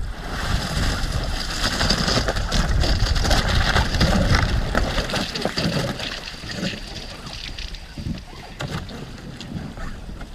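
Wind buffeting the microphone over a dense crackling hiss of thin river ice and slush being broken up. The crackle is loudest in the first half and then fades.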